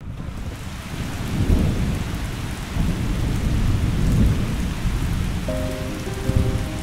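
Steady rain falling, with low rolling thunder rumbling through it and swelling several times. Soft music notes come in near the end.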